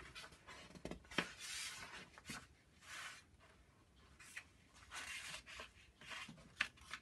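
Paper instruction booklet being opened and its pages turned and smoothed flat: soft rustling swishes of paper, with a few light ticks.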